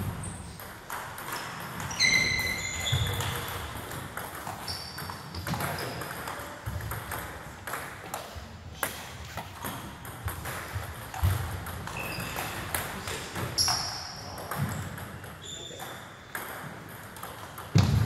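Table tennis balls being played: many short, high-pitched pings of celluloid balls off bats and tables at an uneven pace, from several rallies overlapping, the loudest about two seconds in.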